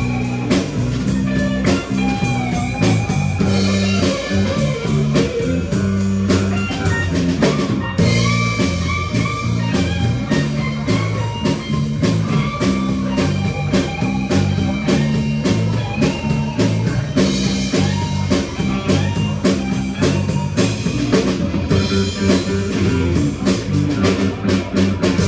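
Live blues band playing instrumentally: electric lead guitar with bent notes over electric bass and drum kit.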